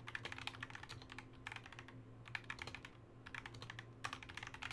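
Typing on a computer keyboard: quick bursts of keystrokes, five or so runs with short gaps between them, over a low steady hum.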